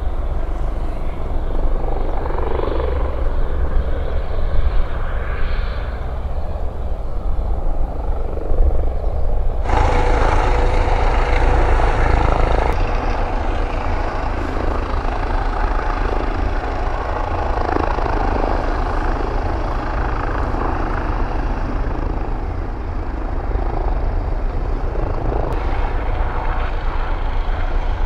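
Helicopter turbine engines and rotor running, with a strong low throb. The sound changes abruptly about ten seconds in, when a steady whine comes in, and again near the end.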